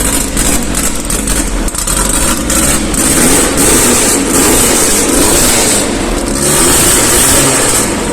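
Renault Alpine A110's four-cylinder engine running and being revved, louder in two long stretches, the first starting a few seconds in and the second about two-thirds of the way through.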